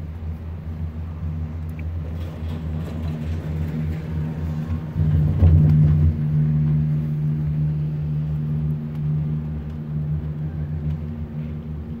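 Doppelmayr cabriolet gondola cabin riding up the haul rope: a steady low hum and rumble that swells about five seconds in as the cabin passes over a lift tower's sheave wheels, then eases back to a steady hum.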